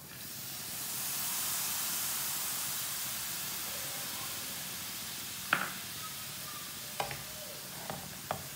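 Milk cream poured into a hot pan of spiced potatoes and onions, sizzling. The sizzle is strongest in the first two seconds, then slowly dies down. In the second half a spatula stirring the mixture knocks sharply against the pan a few times.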